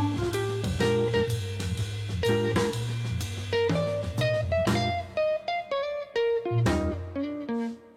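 Background music: plucked guitar over bass and a drum kit, the drums and bass dropping out about five seconds in, leaving separate guitar notes.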